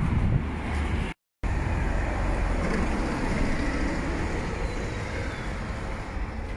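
Road traffic passing on a busy street: a steady rumble of car and van engines and tyres. The sound cuts out completely for a moment about a second in.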